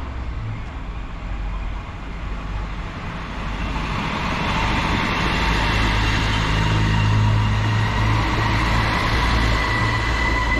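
Czech Railways diesel railcar passing, its engine drone and a steady high whine growing louder about four seconds in.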